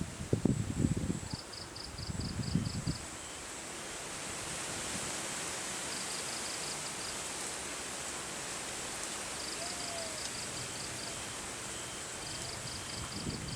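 Wind buffeting the microphone in gusts for the first few seconds, then a steady rush of wind across the open field. Crickets or other insects chirp throughout in short rapid pulse trains.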